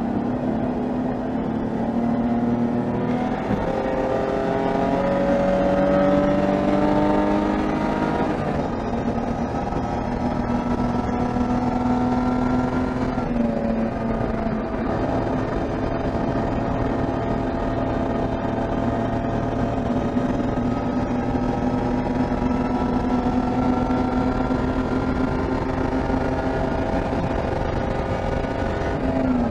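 BMW E30 325is race car's straight-six engine under power, its pitch climbing, dropping sharply about 8 seconds in and again about 13 seconds in, then climbing slowly for the rest of the stretch.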